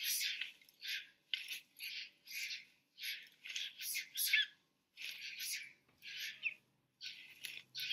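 Harsh, high animal calls in short repeated bursts, about one to two a second, some with a quick squeaky slide in pitch.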